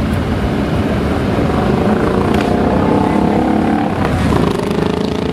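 A column of cruiser motorcycles riding past at low speed, their engines running in a steady mixed drone, with a stronger engine note coming in about halfway through as bikes pass close.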